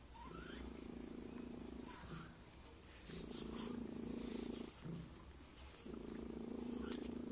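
Cat purring during nursing, in three long stretches with short breaks between.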